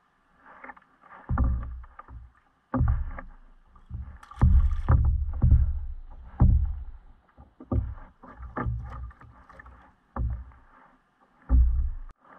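Water slapping and sloshing against a plastic kayak hull in irregular, sudden bursts, busiest about four to seven seconds in.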